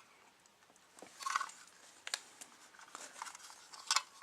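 Light clicks and a brief rustle of plastic model-kit parts being handled, with scattered taps and one sharper click near the end.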